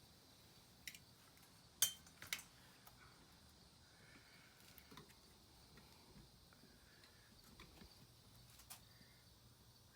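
Near silence broken by a few sharp metallic clinks, the loudest about two seconds in, followed quickly by a double clink.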